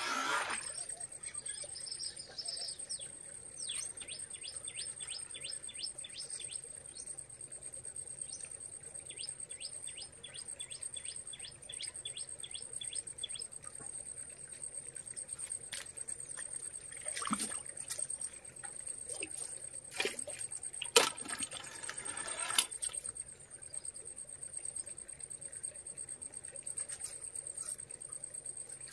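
A bird calling in quick runs of repeated chirps, about three or four a second, over a steady high-pitched whine. A few short, louder noisy bursts and a sharp knock come about two-thirds of the way through.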